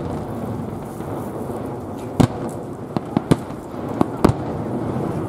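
Fireworks bursting: about six sharp booms and cracks at uneven intervals over steady background noise, with the strongest about two seconds in and a deep boom about four seconds in.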